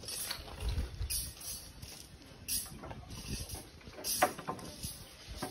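Scattered knocks and clinks of construction work on bamboo scaffolding and a steel rebar beam cage, with one sharper knock about four seconds in.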